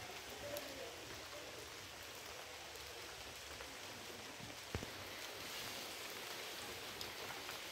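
Steady outdoor hiss that sounds like light rain, with scattered small ticks and a single knock about five seconds in.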